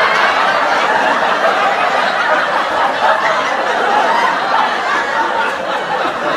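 Sitcom laugh track: a studio audience of many people laughing together at a steady level.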